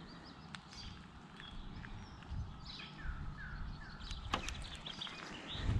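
Small birds chirping and calling, among them a short run of three falling whistles about halfway through, over a low steady rumble, with a few sharp clicks.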